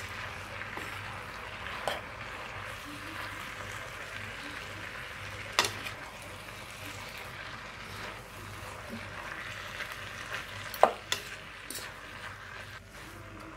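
Rice noodles with vegetables and chicken sizzling in a hot black pan as they are stirred and tossed with a metal fork. A few sharp clinks of the fork against the pan stand out, the loudest about halfway through and again near the end.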